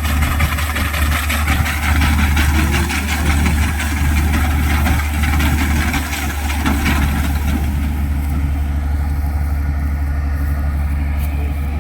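Harvesting machinery's engine running steadily with a deep hum, over a fast rattling hiss of the working machine that dies down about eight seconds in.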